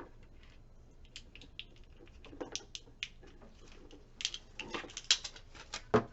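Hands handling hardware and packaging: a run of small clicks, taps and rustles, growing busier about four seconds in, with a sharp knock near the end.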